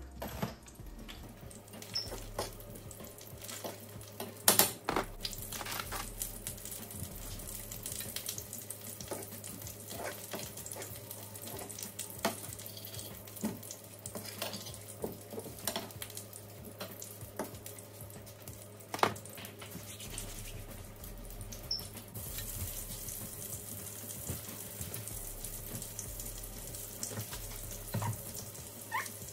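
Sausage frying in oil in a pan: a steady sizzling hiss with scattered crackles and the clicks of a utensil, and a sharp knock about four seconds in and another about two-thirds of the way through.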